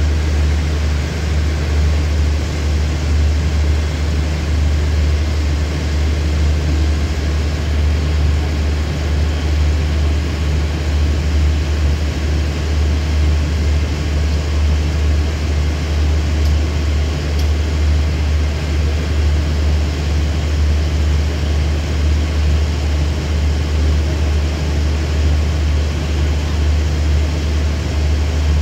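Steady low diesel idle of a standing passenger train, its Hitachi diesel-electric locomotive running unchanged throughout.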